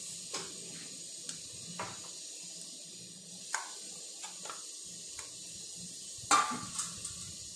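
Scattered light clicks and knocks of a steel vessel against a ceramic bowl as raw chicken pieces are tipped into the bowl and moved about by hand, with one louder knock about six seconds in.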